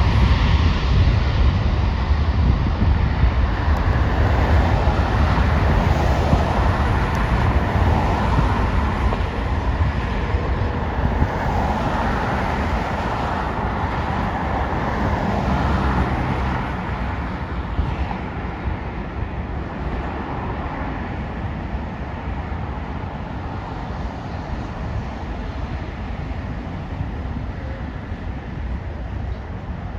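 Jet airliner engine noise, a broad steady rumble that slowly fades away.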